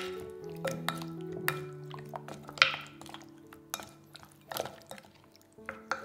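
Wooden spoon stirring raw chicken wings coated in a wet egg marinade in a glass bowl. Wet squelches come with scattered sharp clicks of the spoon against the glass, the loudest about two and a half seconds in, over soft background music with held notes.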